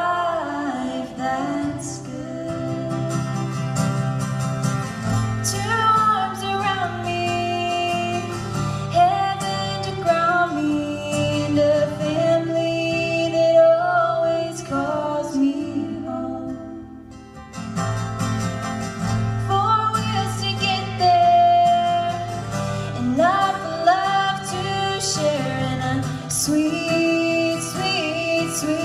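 Two women singing a country song live, accompanied by a strummed acoustic guitar, with a brief lull between phrases about halfway through.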